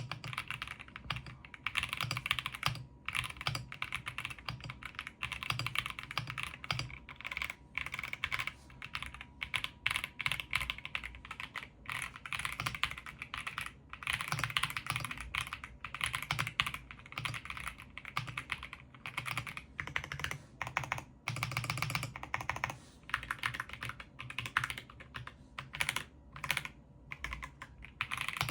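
Fast, continuous typing on a mechanical keyboard fitted with EPOMAKER Bluebird switches and aftermarket keycaps, each keystroke a click with a deeper thock underneath, with brief pauses between bursts.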